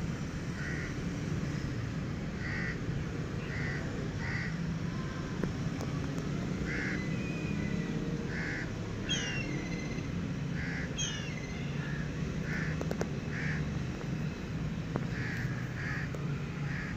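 Birds calling outdoors: short calls repeated about once a second, with two quick falling chirps from another bird near the middle, over a steady low rumble.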